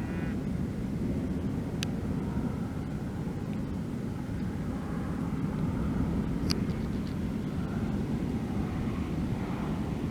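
A steady low rumble, with two sharp clicks about two seconds and six and a half seconds in.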